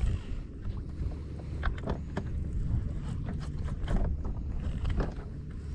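Wind buffeting the microphone over small waves slapping against the side of a jon boat, with scattered light clicks and taps.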